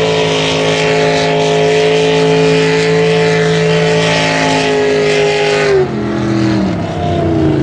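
Racing speedboat's inboard engine at full throttle through open upright exhaust stacks, a loud steady high-revving note that falls in pitch about six seconds in.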